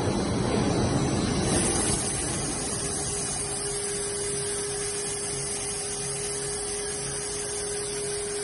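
ABA blown-film extrusion line running: steady machine noise from its extruders and drive motors, a little louder for the first two seconds, with a steady hum joining about two and a half seconds in.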